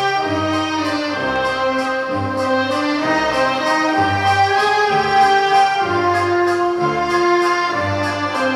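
Orchestral show music with brass, long held melody notes over a bass line that steps from note to note.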